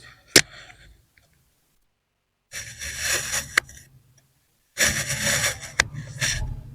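Kinetic sand being sliced twice, each cut a gritty crunching scrape lasting a second or two, with sharp clicks: one near the start and one in each cut.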